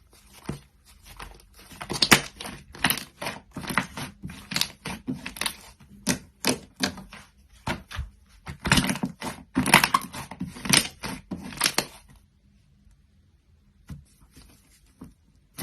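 Glossy slime being handled and squeezed, giving a fast, irregular run of sharp pops and clicks that stops about twelve seconds in, with a couple of faint clicks after.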